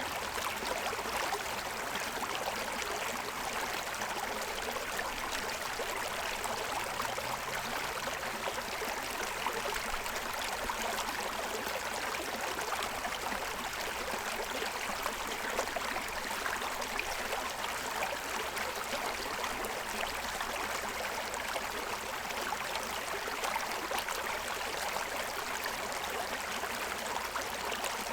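A shallow stream running steadily over the stones of its bed, a constant rush of water.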